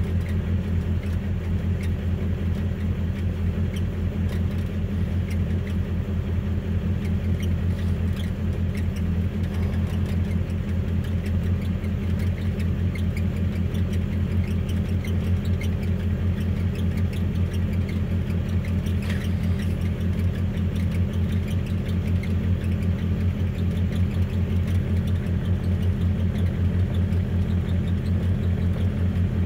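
Car engine idling steadily after a cold start, with an even, low, pulsing beat heard from inside the cab.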